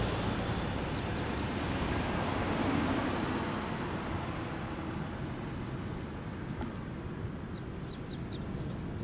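Passing road traffic: a pickup truck and a car drive by close and pull away, their tyre and engine noise loudest at first and slowly fading into a steady rush.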